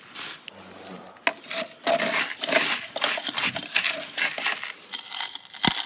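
A rapid, irregular run of clattering, crunching knocks and scrapes, dense from about a second in to the end.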